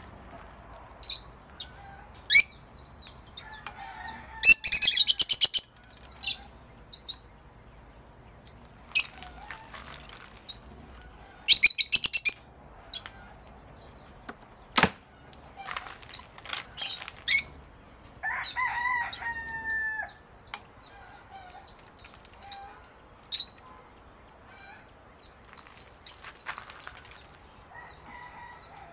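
Birds chirping on and off, with two loud bursts of rapid fluttering pulses about 5 and 12 seconds in and a held two-second call about 19 seconds in. Near the middle comes a single sharp crack: a compound bow being shot.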